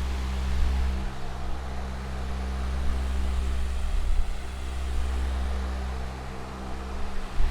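Electric fan with metal blades running steadily: a rushing of air over a low motor hum with several steady tones, the level swelling and easing slightly.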